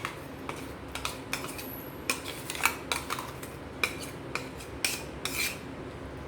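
Spoon scraping and clinking against a grinding jar and vessel while ground tomato paste is emptied out: irregular short clinks and brief scrapes.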